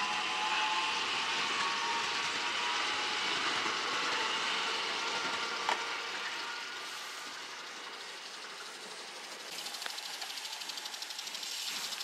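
A JR West 521 series electric train running on the snowy track, with a steady whine of several tones over the rumble of its wheels and a single sharp click about halfway. It fades away from about six seconds in, and a fluttering hiss rises near the end.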